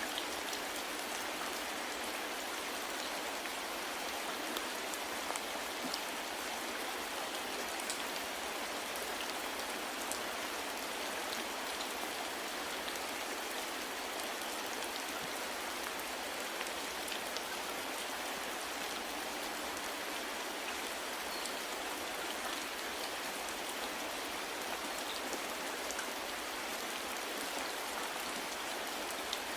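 Steady soft rain falling, an even hiss with scattered faint drop ticks.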